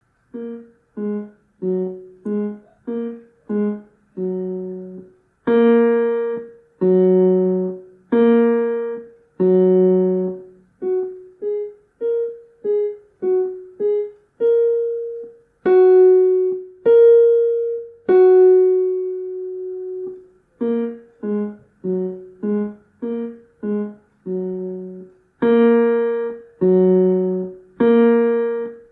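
Piano playing a simple two-hand beginner piece on the black keys in separate, detached notes. Soft passages of short notes alternate with loud passages of longer-held notes, and a long note is held about two thirds of the way through.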